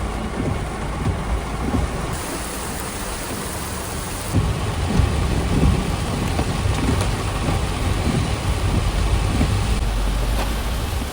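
Typhoon rain and wind: a steady, heavy hiss of rain with gusty low rumbling from wind on the microphone, growing stronger about four seconds in.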